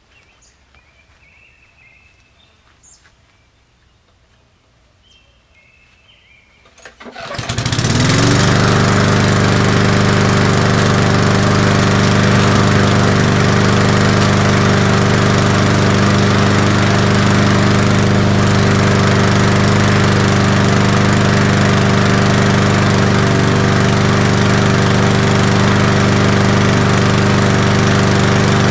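Small push lawn mower engine starting about seven seconds in, speeding up within a second and then running loud and steady at a constant speed.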